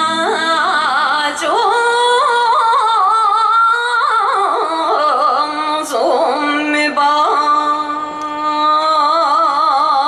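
YOSAKOI dance music over a stage PA: a solo singer holds long, wavering notes over light accompaniment, with an occasional sharp hit.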